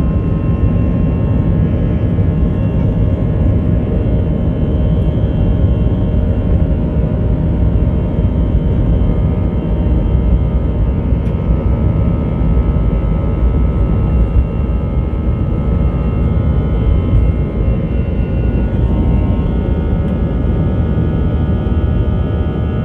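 Airbus A320's CFM56 jet engines at takeoff thrust, heard from inside the cabin during the takeoff roll and lift-off: a loud, steady rumble with several steady whining tones above it.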